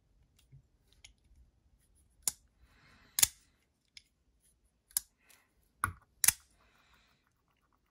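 Kizer Dukes folding knife flipped open and shut on its bearing pivot: about six sharp clicks spaced roughly a second apart, the blade snapping into place, with a click-clack that the owner puts down to the knife itself.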